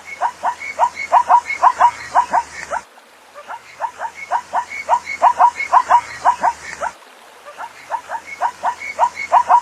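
Zebra calling: rapid strings of short, sharp barking yips in bouts of about three seconds, with short pauses between bouts.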